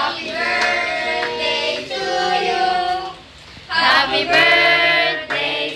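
Singing voices carrying a melody, with a short break about three seconds in before the singing resumes.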